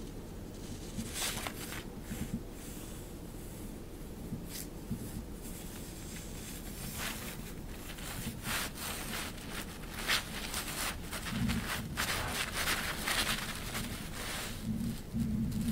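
Thin, crinkly plaid fabric rustling and crinkling as a cat-teaser wand pokes and drags underneath it, in irregular bursts that grow busier and louder in the second half, with a few soft bumps.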